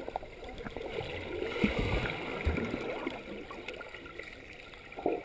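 Muffled underwater sound in a swimming pool: water sloshing and gurgling with irregular low thumps and clicks as swimmers move through the water nearby. A louder rush of water comes near the end.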